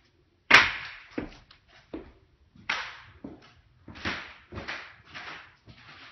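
A sharp slap or knock about half a second in, the loudest sound, followed by a string of uneven thumps and scrapes, about one to two a second, in a small bare room.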